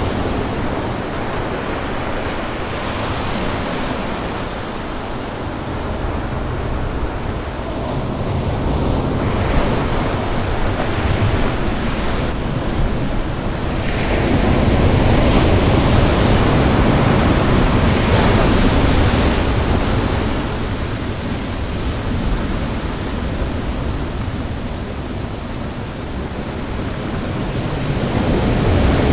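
Sea surf breaking on the beach, mixed with wind buffeting the microphone: a dense rushing noise that swells and eases over several seconds.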